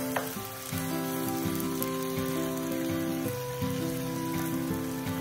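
Background music with held notes over a steady sizzle of sausage, cabbage and green pepper frying in tomato sauce in a skillet.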